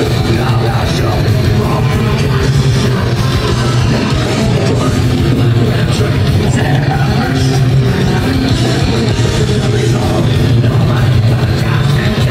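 Live heavy metal band playing loud, with distorted guitars, bass and drums, recorded on a phone in the crowd.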